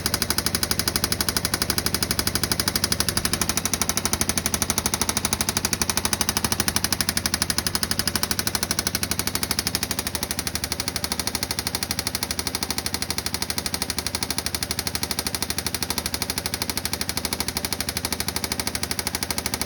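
2016 Yamaha Viking EPS side-by-side's 686 cc single-cylinder engine running with a fast, steady, even knock: an engine knock whose cause the owner does not know.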